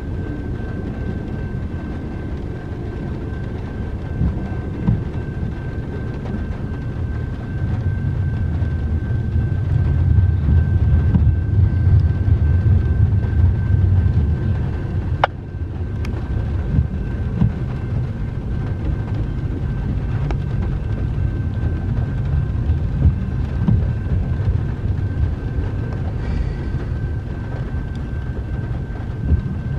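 Double-stack intermodal freight train rolling past a grade crossing, heard from inside a car as a steady low rumble of wheels on rail. The rumble swells louder for several seconds midway, and there is one sharp click about halfway through.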